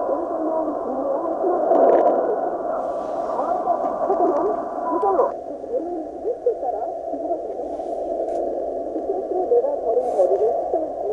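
Weak Korean-language shortwave broadcast speech under noise from North Korean jamming, coming through the speaker of a Tecsun PL-880 receiver in sync upper-sideband mode. About five seconds in, the audio bandwidth is narrowed and the higher tones drop away suddenly, leaving a duller, narrower sound.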